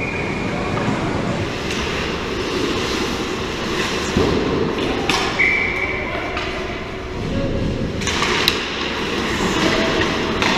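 Ice hockey play on an indoor rink: skate blades scraping the ice, with sticks and puck knocking a few times and players calling out. A brief steady high tone sounds about five seconds in.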